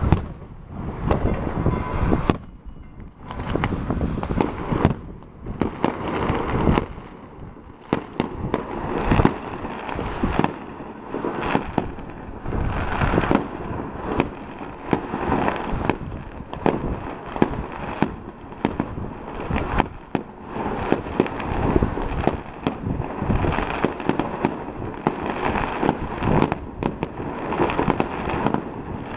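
Fireworks going off in quick, irregular succession: a dense barrage of bangs and crackles, with short lulls near the start.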